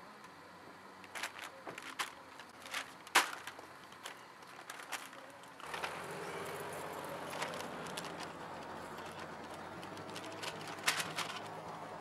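Groceries being handled at a car trunk: a run of light knocks and thuds on pavement, the loudest about three seconds in. From about halfway there is a steady outdoor background hiss, with a couple more clicks near the end.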